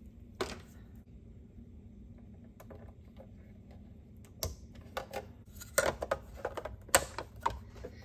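Light plastic clicks and taps as hands work the roof battery hatch of a toy-grade RC truck: one click about half a second in, then a scatter of irregular clicks in the second half, the sharpest near six and seven seconds.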